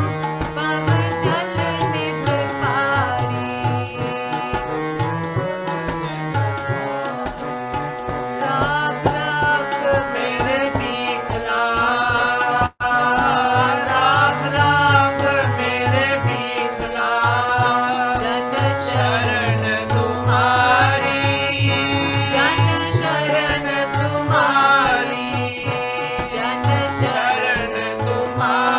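Sikh kirtan: a woman singing a hymn with tabla accompaniment and a sustained melodic instrument. The sound cuts out for an instant about halfway through.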